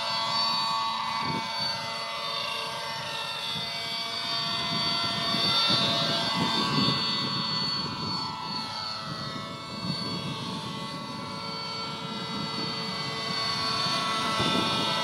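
Glow-fuel engine of a radio-controlled model helicopter running at high speed, a buzzing engine note whose pitch wavers up and down throughout.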